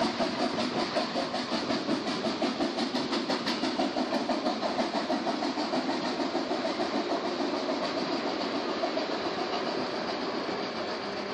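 Narrow-gauge steam train pulling away: the coaches roll past with a rhythmic clatter of about four beats a second, mixed with the locomotive's working exhaust, and the sound fades as the train draws off.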